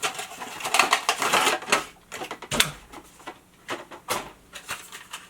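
Packaging of small chocolate squares being handled and unwrapped: irregular crinkling and sharp clicks, densest in the first couple of seconds and sparser after.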